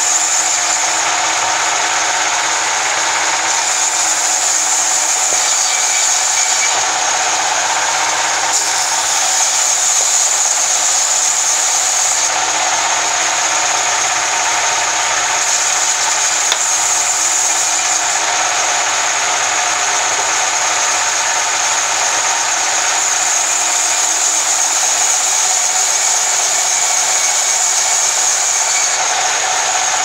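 Sawmill band saw running and cutting lengthwise through a log into planks: a loud, steady noise of the blade and wood with no break.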